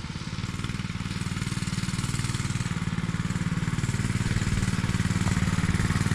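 Small 212cc single-cylinder four-stroke engine of a mini bike running at a steady speed, its rapid even firing pulses growing gradually louder.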